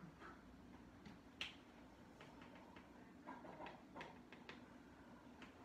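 Faint, scattered light clicks of a spoon touching a pot on the stove over quiet room tone, with one sharper click about a second and a half in and a small cluster of clicks near the end.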